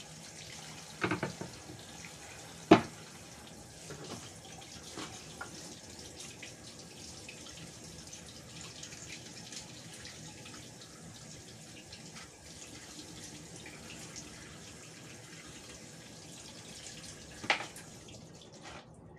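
Kitchen tap running steadily into a sink, turned off near the end. Over it come a few sharp knocks on a wooden cutting board, the loudest about three seconds in.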